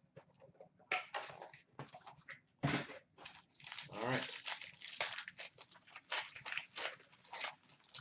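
Foil wrapper of a hockey card pack crinkling and tearing as it is ripped open and crumpled by hand, in a run of irregular sharp crackles.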